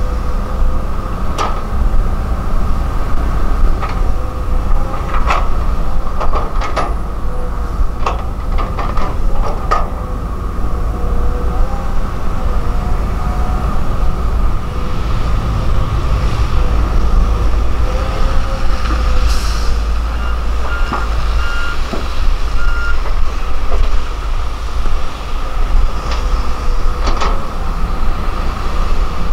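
Volvo EC210DL crawler excavator's diesel engine running under load while digging and loading dirt into a dump truck: a steady heavy rumble with a wavering whine over it. Sharp clanks and knocks from the bucket and tracks come several times in the first ten seconds and again near the end.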